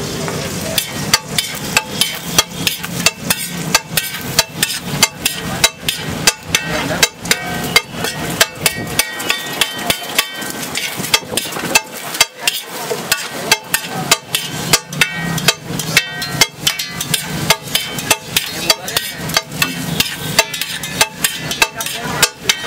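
Metal spatula clanking and scraping against a large flat griddle as a heap of egg fried rice is tossed and mixed: a quick, irregular run of sharp metal strikes, a few each second.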